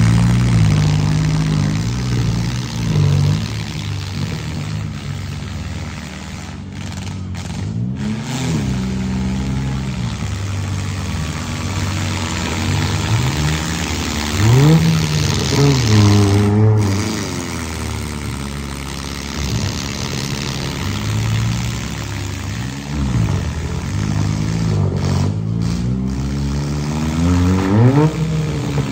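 Engines of compact demolition derby cars revving over and over, their pitch rising and falling every few seconds over a steady low engine rumble, loudest about halfway through.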